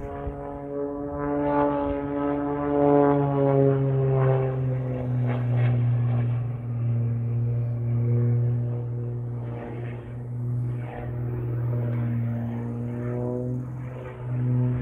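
Single-engine aerobatic propeller plane flying overhead: a continuous engine-and-propeller drone whose pitch slides down a few seconds in and then wavers up and down with the manoeuvres, swelling louder near the end.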